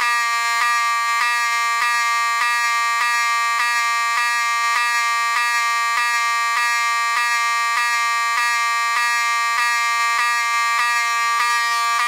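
Wheelock 7002T-24 fire alarm horn/strobe sounding a loud, steady, harsh buzzing horn tone. The tone is broken by brief skips, a little under two a second. The skips come from the strobe, which is wired in series with the horn's coil and steals power from the horn each time it discharges and flashes.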